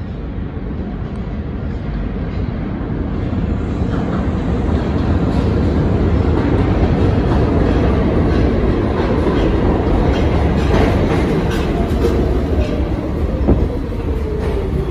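Pullman Standard R46 subway train pulling into the station, growing louder as it comes in, with wheels clacking over rail joints. A falling whine in the last few seconds as the train slows.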